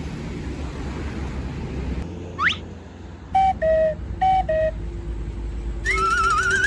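A low rumble, then a quick rising whistle, two short pairs of falling two-note tones, and near the end a warbling alarm-like tone that climbs steadily in pitch.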